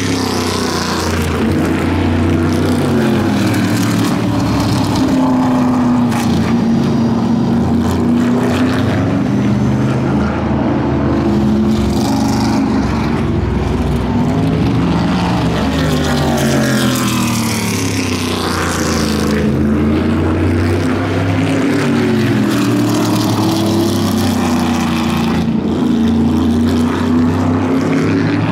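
Several vintage modified race car engines running at speed on a short oval during practice, a steady loud racket whose pitch rises and falls over and over as the cars lap past.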